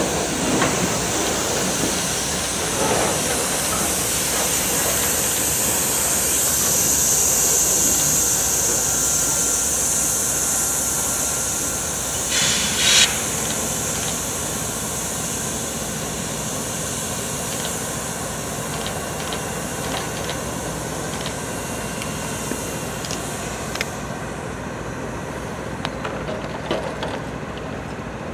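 Freight cars of a passing train rolling by on the rails with a steady rumble and hiss that slowly fades as the last cars go by. About halfway through comes a short metallic squeal, the loudest moment.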